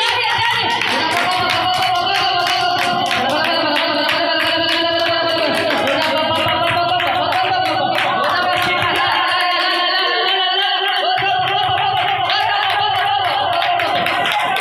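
Worship song: singing over instrumental accompaniment, with steady rhythmic clapping.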